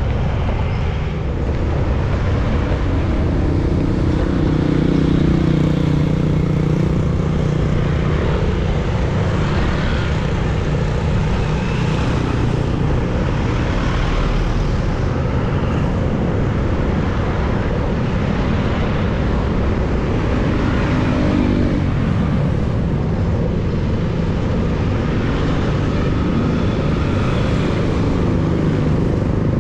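Road traffic going by: the engines of passing cars and motorcycles, one swelling and fading about 20 seconds in, over a steady low rumble of wind on the microphone of the moving bike.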